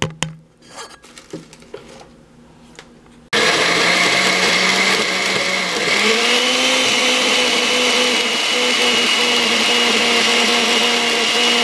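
A few light knocks, then about three seconds in a countertop blender starts abruptly and runs steadily, grinding dried red serrano chiles in oil without water. Its motor pitch steps up slightly a few seconds after starting, then holds.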